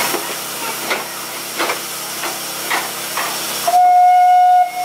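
Narrow-gauge steam locomotive hissing steam from its cylinders, with a few short chuffs as it moves slowly. Near the end it gives one steady steam-whistle blast about a second long.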